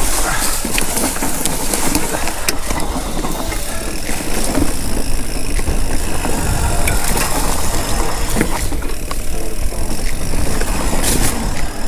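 Kenevo electric mountain bike riding down a dirt singletrack: a steady rush of wind and tyre noise with frequent clicks and rattles from the bike jolting over the trail.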